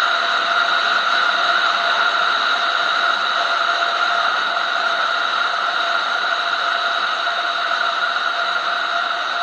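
Motorcycle cruising at steady speed: a constant rush of wind and road noise with the engine's steady drone underneath, heard through a bike-mounted camera.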